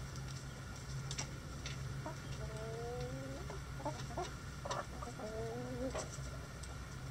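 Domestic hens clucking: two drawn-out, slightly rising calls with a few short clucks and sharp clicks between them, over a low steady hum.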